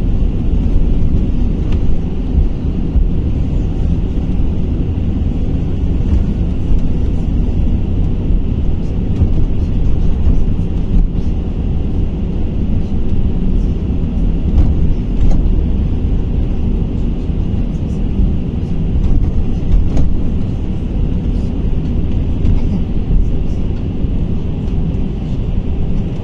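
Cabin sound of a KamAZ-6282 battery-electric bus under way: a steady low rumble of road and tyre noise with faint rattles.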